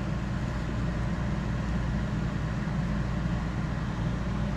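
Steady low machine hum that holds unchanged throughout.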